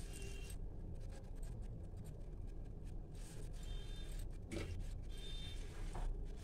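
Thick curry gravy bubbling in an iron kadhai over a gas burner on high flame, with a steady low rumble. A few faint high clinks of glass bangles and two soft knocks come as kofte are pressed into the gravy by hand.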